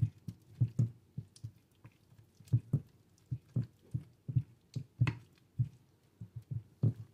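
A spatula patting and pushing a thick, creamy chicken-and-vegetable mixture around a glass baking dish: irregular soft thuds and scrapes, a few a second.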